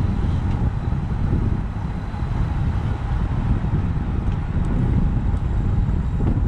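Wind buffeting the microphone of a camera riding on a road bike at race speed: a steady, gusting low rumble with a few faint ticks.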